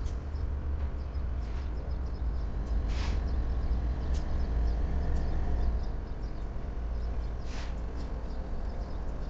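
Low, steady rumble of a freight train rolling slowly through a rail yard, with a few short, high chirps over it.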